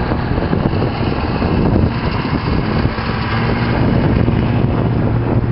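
Snowmobile engine running steadily with a low hum that grows louder for a couple of seconds past the middle.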